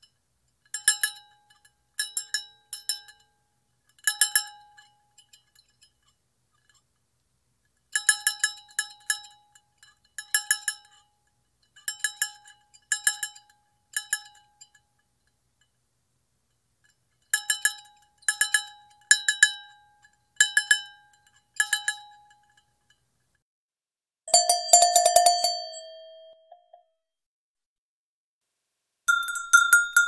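Cowbells clanking: a clapper bell shaken in over a dozen short bursts of several quick clanks each, with silent gaps between. About 24 seconds in, a lower-pitched bell clangs louder and rings out for about two seconds, and a higher-pitched bell starts ringing near the end.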